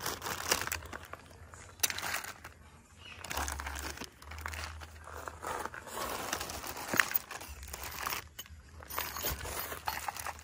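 Plastic wrapping crinkling and cardboard rustling as a hand handles plastic-wrapped roof crossbar parts in their shipping box, in irregular bursts with a few sharper clicks.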